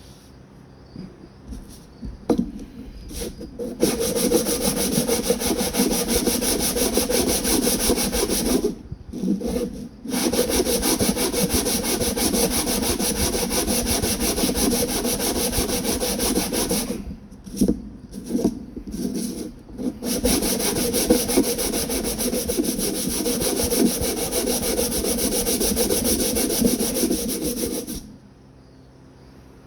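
Coarse 60-grit sandpaper rubbed by hand over handle scales in quick back-and-forth strokes. It comes in three long spells of several seconds each, with short pauses and a few scrapes between. The coarse grit cuts deep scratches that give epoxy a grip.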